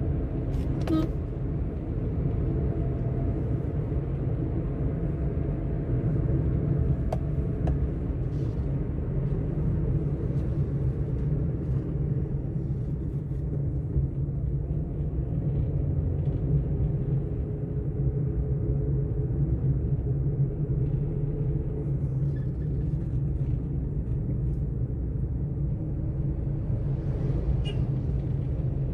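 Steady low rumble of a car heard from inside the cabin, with a few faint clicks about a second in and near the end.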